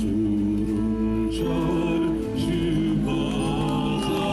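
A man singing into a microphone over amplified music, in long held notes.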